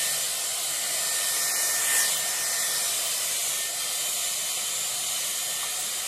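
Dyson Airwrap blowing through its round brush attachment: a steady rushing hiss of air, with a brief swell about two seconds in.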